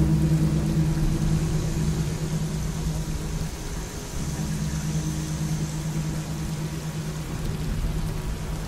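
Ambient background track: a steady low drone of held tones over an even, rain-like hiss. The drone breaks off briefly about halfway through and then resumes.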